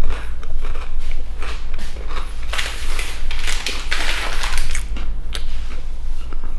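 A person chewing a crunchy Tuscan crostino (toasted bread) close to the microphone: a string of crunches, loudest and densest about halfway through.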